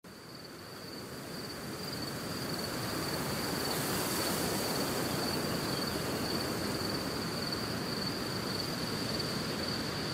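Outdoor ambience fading in over the first few seconds: a steady, high-pitched insect drone on one unchanging note over an even rushing hiss.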